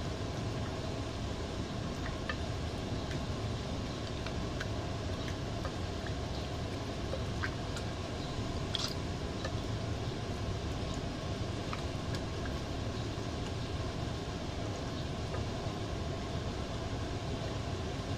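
Faint wet squelches and small clicks of a hand massaging marinade into raw chicken wings, over a steady low rumbling background noise.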